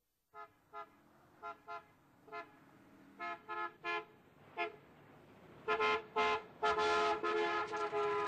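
Car horn honking: a string of short toots, then louder, longer blasts near the end, one held for about a second.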